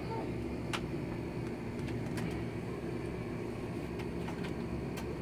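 Steady low rumble of room noise in a small studio, with a few light clicks, the clearest just under a second in.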